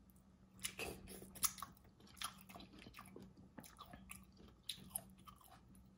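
A person biting into and chewing a sauce-soaked boiled egg: irregular wet smacks and soft clicks of the mouth.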